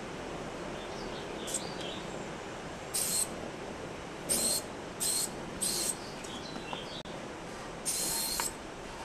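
Aerosol spray-paint can hissing in short bursts: five sprays of about half a second each, the last one longer.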